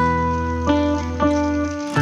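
Background music: plucked acoustic guitar and keyboard notes over a steady bass line, with a new note or chord about every half second.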